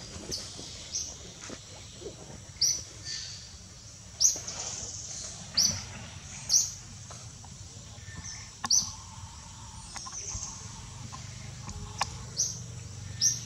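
A bird giving about ten short, high chirps, loosely spaced, over a steady high hiss of outdoor background.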